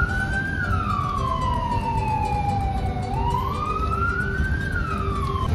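A siren wailing, its pitch sliding slowly up and down in long sweeps, about one and a half cycles, then cutting off abruptly near the end. A steady low rumble of street noise runs underneath.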